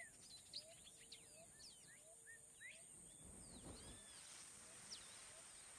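Faint outdoor field ambience: birds chirping and twittering, with a short low chirp repeating about every two-thirds of a second over a steady high hiss. A brief soft rush of noise comes about three seconds in.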